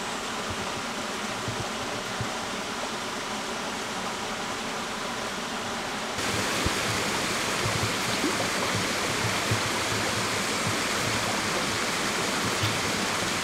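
River water rushing steadily, growing louder and brighter about six seconds in.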